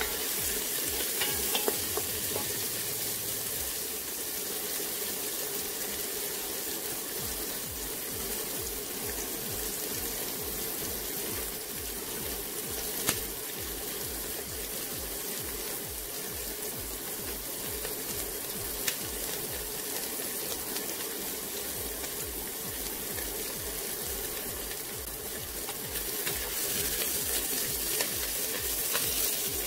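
Diced vegetables sizzling steadily as they sauté in oil in a stone-coated pot, stirred with a wooden spoon, with a few sharp knocks of the spoon against the pot. The sizzle grows a little louder near the end.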